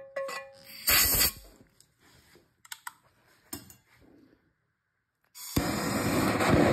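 A short blast of compressed air from an air blow gun into a jam-jar pulsejet, stirring up its methanol fuel, and a few faint clicks. Near the end a torch lighter hisses steadily as its flame is held to the jar to light it.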